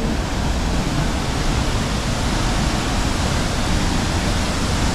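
Tegenungan Waterfall's water falling, heard close up as a steady, loud, even rush of noise.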